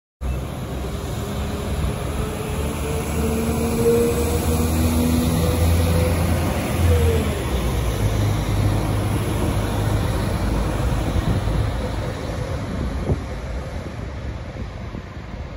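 Northern CAF Civity multiple-unit passenger train pulling away along the track, a rumble under a drive note that rises for several seconds, drops abruptly about seven seconds in, then settles lower and fades as the train moves off.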